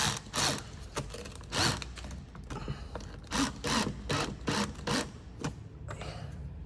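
Irregular clicking and clattering of screws and a plastic bracket being handled and fitted by hand.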